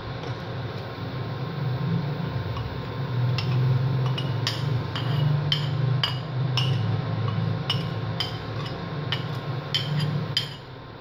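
Metal spoon clinking and scraping against the inside of a cup as thick curry mix is scraped out into a pot. There are about two light clinks a second, starting about three seconds in and stopping near the end, over a steady low hum.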